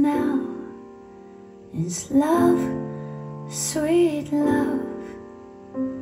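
Recorded music playing through a Tannoy Gold 15-inch dual-concentric loudspeaker system driven by Sony amplification: a slow song, a singing voice with vibrato over sustained accompaniment, with sung phrases entering about two seconds in and again near four seconds.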